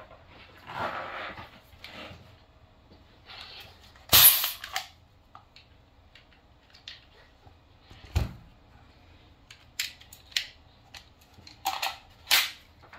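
A CO2-powered PepperBall TCP launcher fires a single sharp pop about four seconds in, a velocity shot through a chronograph. It is followed by softer clicks, a low knock and handling noises.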